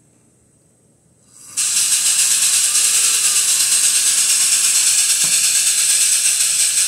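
Electronic steam-locomotive chuffing from an MRC Sound and Power 7000 sound unit through its loudspeaker: a hissy chuff repeated in a fast, even rhythm, several times a second, starting about a second and a half in. The chuff rate is the one set with the unit's rate adjustment knob.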